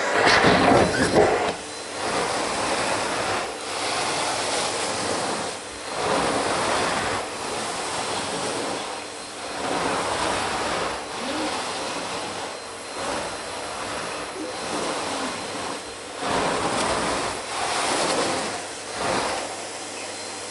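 Vacuum cleaner running, its rushing suction noise swelling and falling every second or two as the nozzle is pushed back and forth. There is a louder surge in the first second.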